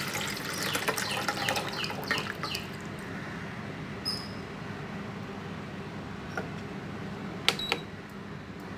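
Water pouring from a glass measuring jug into a stainless steel saucepan, splashing for about three seconds before the pour stops. A quieter steady hiss follows, with a short high tone about four seconds in and two sharp clicks near the end.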